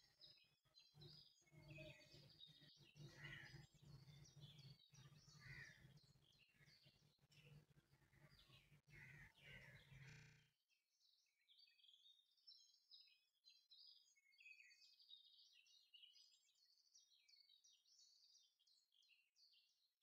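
Faint birds chirping in the background, over a low steady hum that cuts off suddenly about halfway through, leaving only the chirping.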